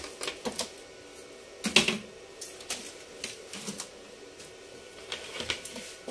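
Irregular clicks and taps of plastic and metal laptop parts being handled and fitted together during reassembly, with one louder knock about two seconds in.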